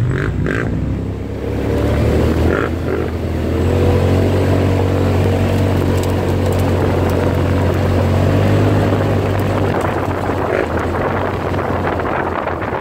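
Off-road vehicle engine running at a steady, low pace while driving on a muddy dirt road, with tyre and wind noise. About ten seconds in the engine note eases off and wind buffeting on the microphone takes over.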